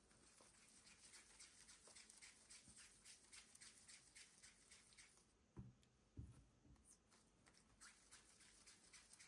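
Faint soft, sticky patting and pressing of hands flattening a ball of soft poğaça dough, with light ticks throughout and a few dull thumps a little past the middle.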